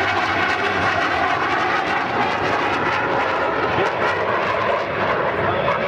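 Jet noise from an F-117 Nighthawk's two General Electric F404 turbofan engines in flight, a steady loud rush with no clear rise or fall.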